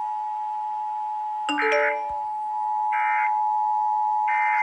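Emergency Alert System end-of-message tones: three short, buzzy digital data bursts about a second apart, over a steady two-note alert tone. A brief chime sounds just before the first burst.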